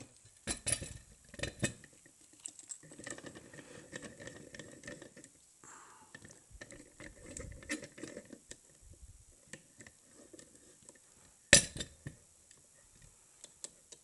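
Metal clicks, clinks and scraping as a Russwin lock cylinder is set into a metal bench lock vise and the vise's threaded rod is turned to clamp it. A single sharp metallic knock about eleven and a half seconds in is the loudest sound.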